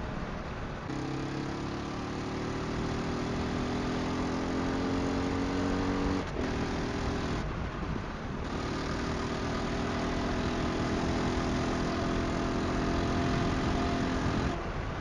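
2001 Aprilia Pegaso 650's single-cylinder engine pulling under hard acceleration, its note rising slowly through one gear, breaking for gear changes about six and eight seconds in, then rising again. Wind rushes on the helmet microphone throughout.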